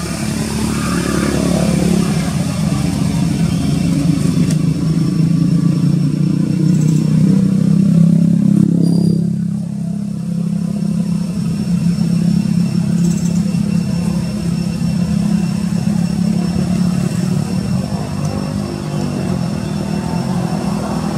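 A motor engine running steadily with a low hum, swelling briefly about eight seconds in and then settling back.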